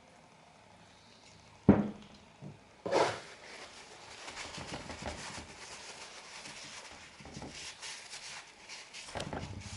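Cleaning product sprayed onto a roller-shutter winch pulley, then scrubbed. A sharp click comes about two seconds in, a short hiss of spray about a second later, then several seconds of uneven rubbing and scraping.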